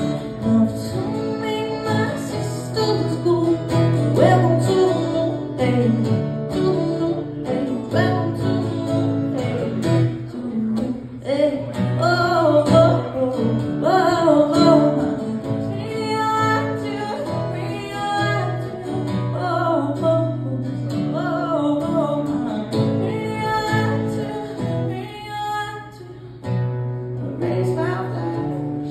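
A woman singing with her own strummed acoustic guitar in a live solo performance. There is a brief lull in the singing near the end.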